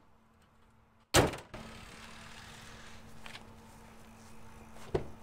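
The hood of a 2007 Toyota Tacoma pickup slammed shut about a second in: one loud thump.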